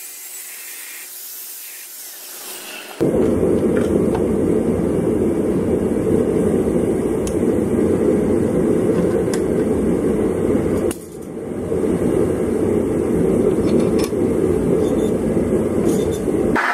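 An angle grinder grinding a steel axe blank, heard as an even hiss. About three seconds in it gives way to a loud, steady low roar that drops out briefly about eleven seconds in and then builds back up.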